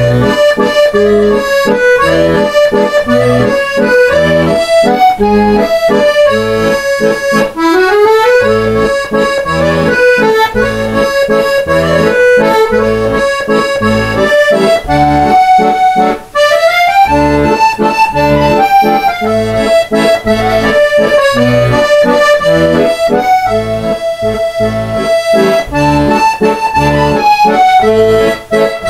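Instrumental background music: a melody over a steady, evenly repeating bass beat.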